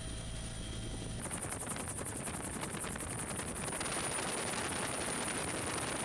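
Helicopter rotor and engine noise heard through the open cabin door. About a second in, it changes to a louder rushing noise with a rapid, even chopping beat, which steadies out before the end.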